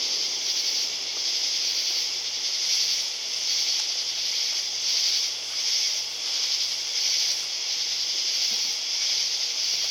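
A chorus of night insects: a steady high-pitched shrilling that swells and fades in regular pulses.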